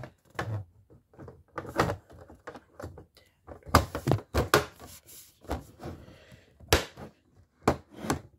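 Irregular clicks, knocks and light rattles of a plastic exit sign being handled as its faceplate is fitted back on.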